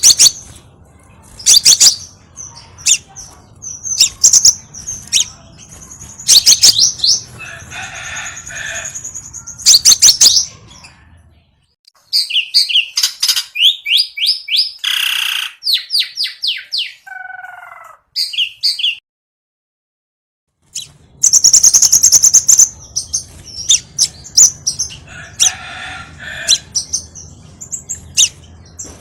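Scarlet minivet calling: rapid series of sharp, high chirps and quick whistled trills, repeated over and over as a bird-lure recording. The calls stop for about two seconds about two-thirds of the way through, then resume.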